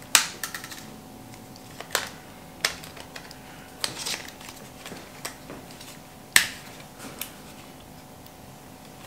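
Scattered sharp plastic clicks and snaps from handling a Canon EOS M50 mirrorless camera body while its LP-E12 battery is fitted behind the battery door and its flip-out screen is swung open. About seven clicks, the loudest just at the start and about six seconds in.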